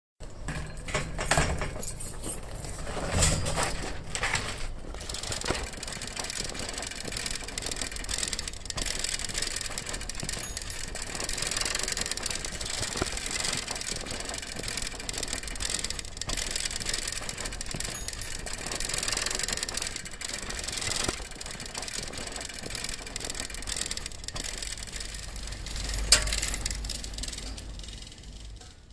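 Steady rushing noise of the street or vehicle kind, with a low hum under it and a few sharp knocks; it fades out near the end.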